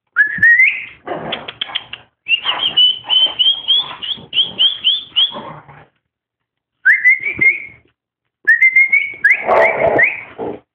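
A dog whining in high-pitched rising whines, in several bouts. In the middle is a quick run of short, yelping whines, about three a second.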